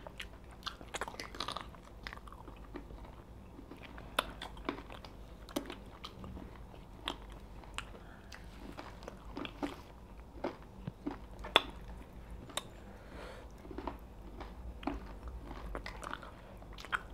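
Close-miked chewing and wet lip smacks of people eating pounded yam and meat in soup by hand, a string of short irregular mouth clicks.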